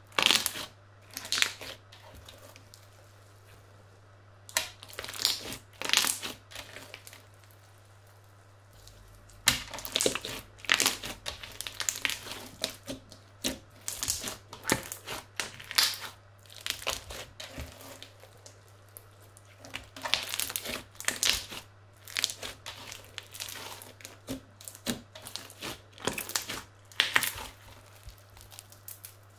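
Crunchy slime studded with small beads being squeezed, pressed and stretched by hand, crackling in short irregular bursts. It pauses twice in the first ten seconds, then crackles almost continuously. A faint steady low hum runs underneath.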